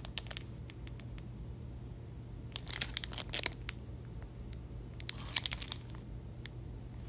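Plastic soft-bait package crinkling as it is handled and turned over in the hand: two spells of crackling, about three seconds in and again about five seconds in, with a few light ticks between.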